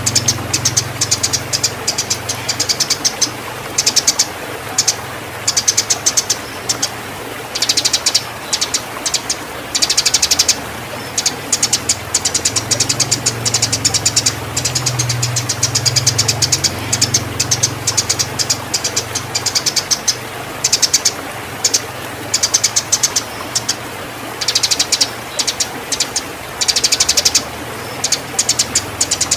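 Eurasian tree sparrow chirping in rapid, agitated bursts of fast repeated chirps with short gaps between, the excited fighting and breeding-condition calls used as a lure for training songbirds. A low steady hum runs underneath.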